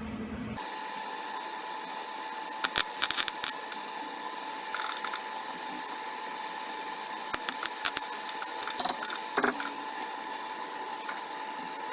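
Wire-feed welder arc crackling in four short spurts, each a second or less, over a steady hum. The welds are short beads laid on broken exhaust-manifold bolt studs so they can be turned out with a wrench.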